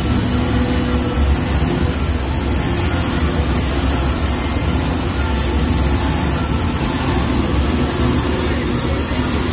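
Steady rumble and road noise of a moving open-sided studio tour tram, heard from aboard.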